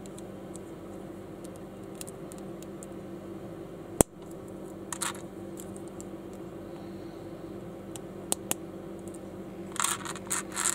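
Small plastic building bricks or parts clicking and rattling as they are handled: a few separate clicks, then a quick run of rattling clicks near the end, over a steady low hum. One single sharp click about four seconds in stands out as the loudest sound.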